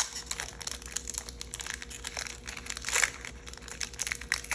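Foil wrapper of a Pokémon booster pack crinkling and tearing as it is torn open, an irregular run of crackles that is loudest about three seconds in.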